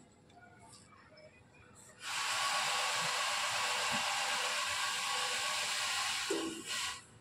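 A loud, steady hiss like rushing air starts suddenly about two seconds in, runs for about five seconds and cuts off abruptly.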